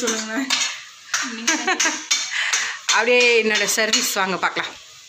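Metal pots and utensils clinking and clattering at a kitchen counter, with voices talking over them in short stretches.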